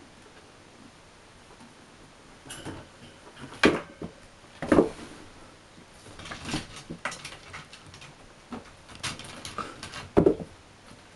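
Kittens scrambling and pouncing after a toy mouse: scattered scuffles and clicks with several sharp thumps, the loudest a few seconds in and again near the end.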